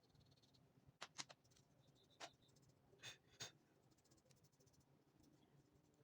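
Near silence with a few faint clicks and taps from a keyboard being cleaned: two close together about a second in, one after two seconds and two more a little after three seconds.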